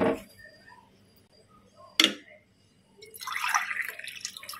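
Water being measured into a biryani pot by the tumbler-full: a sharp knock of the tumbler at the start and again about two seconds in, small drips between, and water pouring in near the end.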